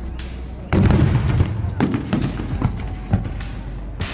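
Fireworks going off: many sharp bangs and crackles over deep booms, growing suddenly louder about a second in.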